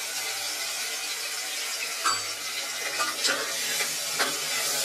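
Ginger-garlic paste sizzling in hot oil with fried whole spices in an aluminium pressure cooker, a steady hiss. A steel ladle scrapes and clinks against the pot a few times from about two seconds in.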